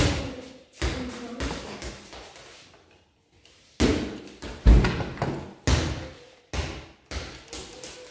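Irregular knocks and thumps of tools being handled and set down on a wooden board with plastic electrical boxes, about a dozen sharp hits with a short pause near the middle.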